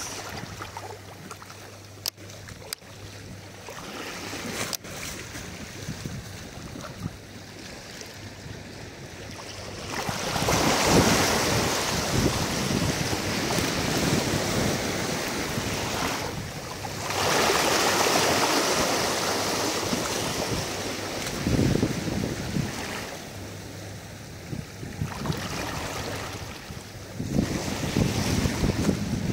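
Wind buffeting the microphone over choppy sea water lapping close by. It comes in gusts, swelling about ten seconds in, again around seventeen seconds and near the end, with a few faint clicks in the first five seconds.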